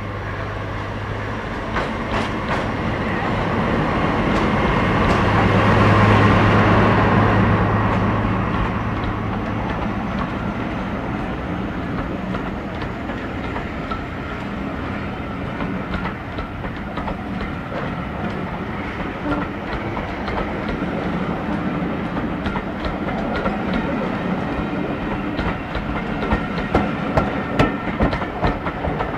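Diesel train passing close by. Its engine note rises to its loudest about six seconds in and then fades, leaving the rolling rumble of the train. Wheels click over the rail joints throughout, more sharply near the end.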